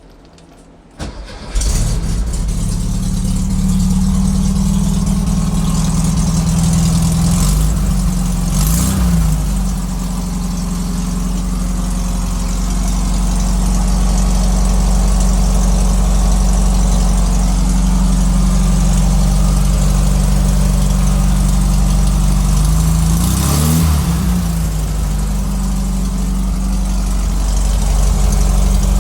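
Air-cooled Volkswagen flat-four engine of a 1969 Karmann Ghia starting after a brief crank about a second in, running on freshly installed points and condenser. It settles into a steady idle and is revved briefly twice, once about a third of the way in and again well past the middle.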